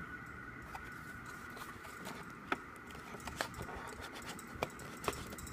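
Album packaging and CD being handled: a few sharp, light clicks and taps over a steady faint high-pitched hum.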